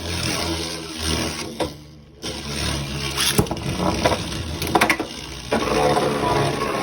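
Two Beyblade Burst spinning tops, Astral Spriggan and Bahamut, whirring and scraping around a plastic stadium, clashing with sharp clacks several times.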